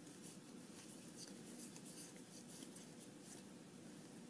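Faint rubbing and light scraping of Flesh and Blood trading cards sliding against one another as a stack is fanned through in the hands.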